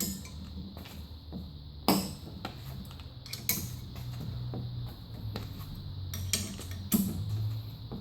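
Metal clinks and knocks from an 8 mm Allen key working a spin bike's crank bolt loose, about five separate sharp knocks irregularly spaced, over a low steady hum.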